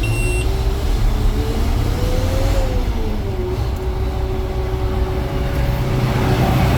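Vehicle engine running steadily with a low rumble and a whine that climbs and falls in pitch once midway, then holds steady. A short high electronic beep cuts off just at the start.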